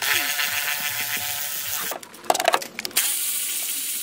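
Cordless electric ratchet running, spinning off bolts on a truck engine: a steady motor whine for about two seconds, a few clicks and rattles, then another run near the end.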